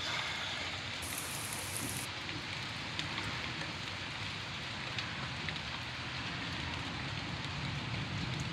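Steady thunderstorm rain falling on the trees and yard, with a few sharp drop ticks.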